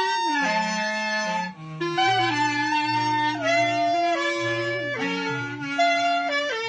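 Clarinets playing a slow piece in three parts, with a low clarinet holding the bass line under two higher ones. The held notes change in steps, with a brief breath-gap about a second and a half in.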